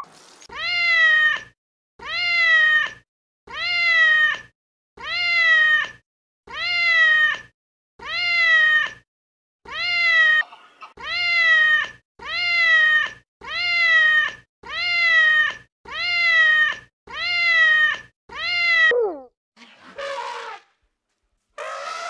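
A cat meowing, the same meow repeated about fifteen times in a row, each call about a second long and sliding slightly down in pitch. Near the end a short downward glide and a rougher, noisier sound follow.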